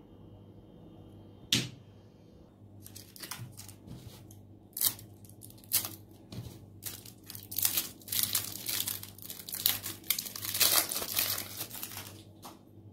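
Thin clear plastic lollipop wrapper crinkling and tearing as it is pulled off a swirl lollipop, in many irregular crackles that come thickest near the end. One sharp click sounds about a second and a half in.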